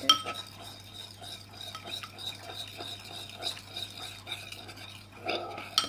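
Glue thinned with water being stirred slowly in a container, the utensil scraping and tapping against the sides in quick, uneven little clicks, with one sharper knock right at the start.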